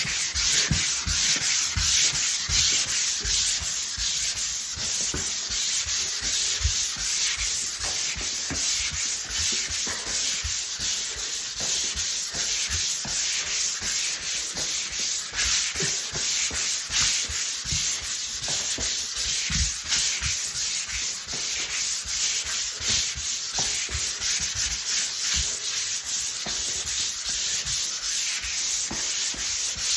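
Hand sanding of dried drywall joint compound on a taped seam: continuous scratchy rasping made up of quick back-and-forth strokes along the lines of the mud, the final smoothing sand.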